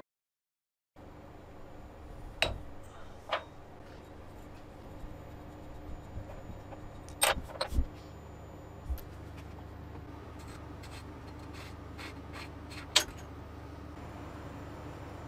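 After a second of dead silence, a steady low hum with scattered sharp clicks and light metallic clinks of handling, a few at a time, the loudest near the end. The model engine is not running.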